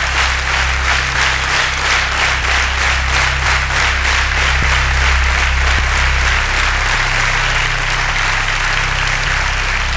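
Studio audience clapping together in a steady rhythm.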